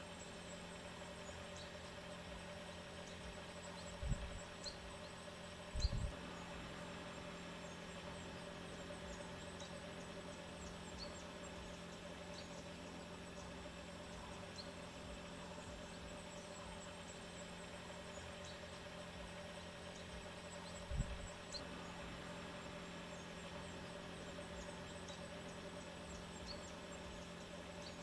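Steady low hum of vehicle engines idling, with faint scattered high ticks and three short low thumps, two close together early and one near the end of the second third.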